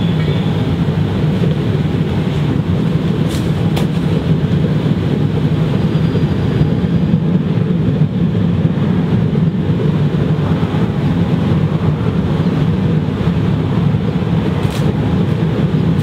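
Gravity-fed waste oil burner with a 12-volt car blower running steadily, its flame and fan making an even, low rushing noise. It is burning on waste oil after being lit on gas.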